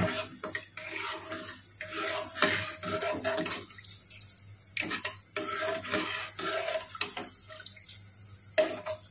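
Steel ladle stirring thin rasam in a metal pot: liquid sloshing with repeated light clinks of the ladle against the pot, pausing briefly twice.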